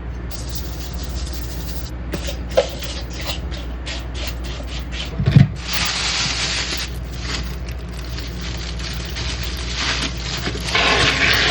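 Kitchen handling noises during food preparation: light clicks and rustles over a steady low hum, with one heavier knock about five seconds in.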